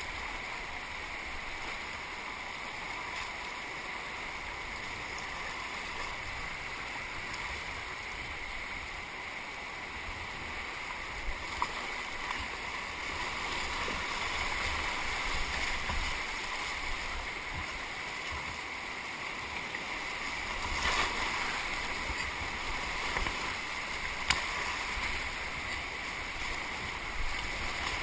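Rushing, churning whitewater of a flood-swollen river heard from a kayak, getting louder about halfway through as the boat runs into wave trains, with paddle strokes splashing and a couple of sharp knocks.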